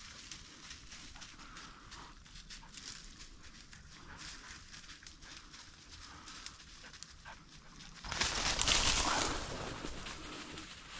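Footsteps crunching through dry leaves and brushy cover, with twigs snapping. About eight seconds in comes a sudden, louder burst of rustling and crashing through the brush that lasts a second or two and then eases off.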